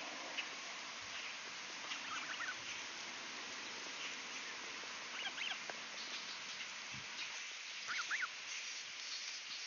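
Canada goose goslings peeping: short high calls that bend up and down, in little clusters about two seconds in, around five seconds and near eight seconds, over a steady background hiss.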